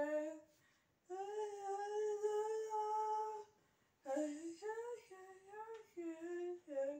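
A girl's voice singing a tune unaccompanied: a long held note after a short pause, then after another pause a run of shorter notes moving up and down.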